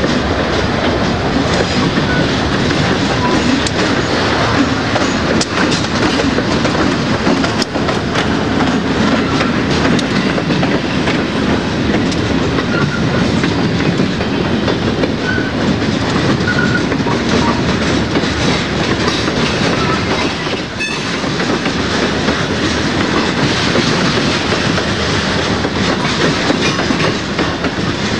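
Freight train of covered hoppers and gondolas rolling past at close range, a steady, loud rumble of steel wheels on the rails.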